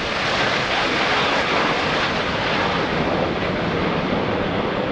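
Steady jet roar from a formation of Canadair CT-114 Tutor trainers, each powered by a single turbojet, flying overhead.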